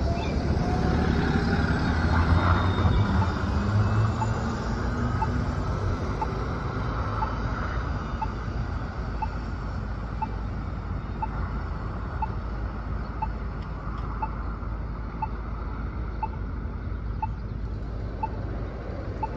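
New Flyer Xcelsior XDE40 diesel-electric hybrid bus pulling away, a rising whine over a low rumble for the first few seconds. After that comes steady passing traffic, and partway through a pedestrian crossing signal's locator tone starts beeping about once a second.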